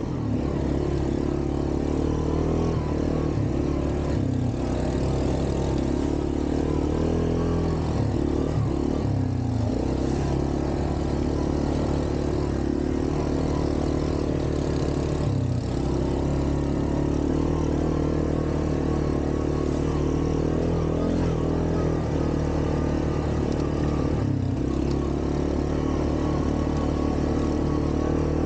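ATV engine running under way on a trail ride, its speed dropping briefly and picking back up about four times.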